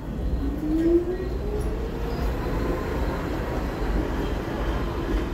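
R44 subway train pulling out of the station and moving away: a steady low rumble of wheels on rail, with a rising whine over the first two seconds as it gathers speed.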